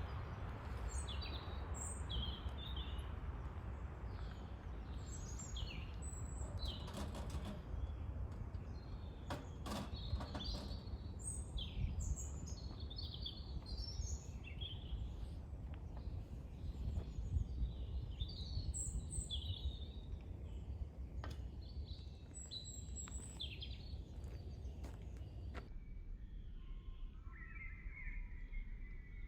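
Small birds chirping and twittering repeatedly over a steady low outdoor rumble, with a few sharp clicks. Near the end the rumble drops away suddenly and lower-pitched chirping carries on.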